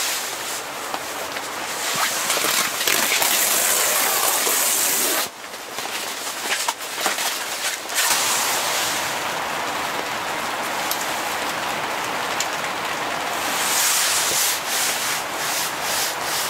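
Steady hiss of rain on tent fabric, dipping for a couple of seconds about five seconds in.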